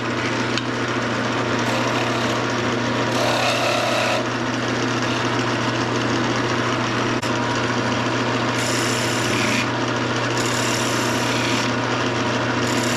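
Wood lathe running with a steady motor hum, a turning tool cutting the spinning pine blank in several short stretches of louder hiss.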